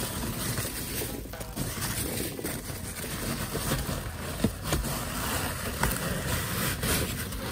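Packing peanuts rustling and shifting as hands dig through them around a plastic clamshell package: an irregular scratchy rustle with scattered small clicks.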